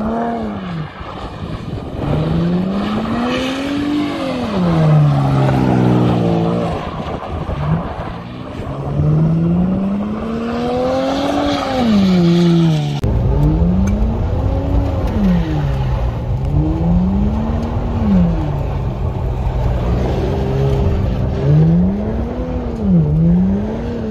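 Holden VZ Commodore's 3.6-litre V6 revved hard and let fall again and again while the car is slid sideways. The engine note rises and drops in about nine swells of a second or two each.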